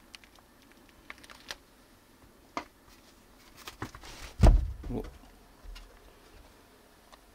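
A few light taps and clicks. About four and a half seconds in, a cat gives a loud, short meow falling in pitch, then a softer one half a second later.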